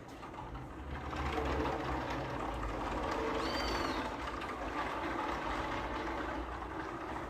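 Frameless 8 mm glass sliding-door leaves rolling along their bottom track as they are pushed one after another to stack at the side, a steady low rolling noise. A brief high chirp sounds about three and a half seconds in.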